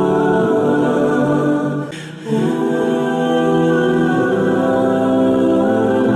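Background music of long, held choir-like chords without words, briefly dipping about two seconds in before the chords resume.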